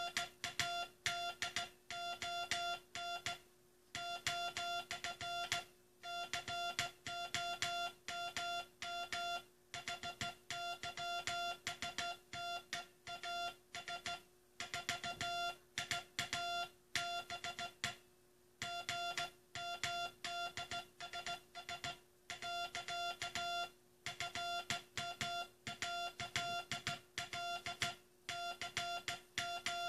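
Morse code (CW) sent by hand: a single-pitch beep keyed on and off in dots and dashes, with short pauses between words, over a faint steady hum.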